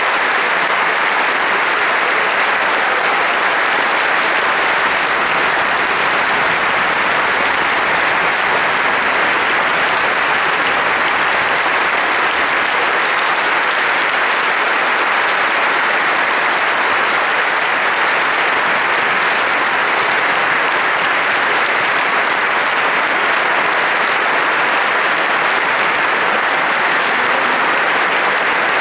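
Large concert-hall audience applauding: dense, steady clapping that keeps up without a break.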